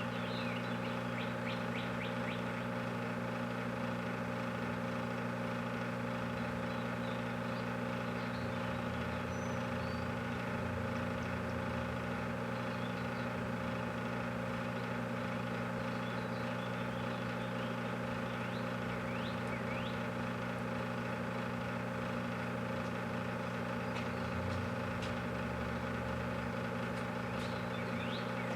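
Microwave oven running with a steady low electrical hum while it heats a whole watermelon, with a few faint high chirps now and then.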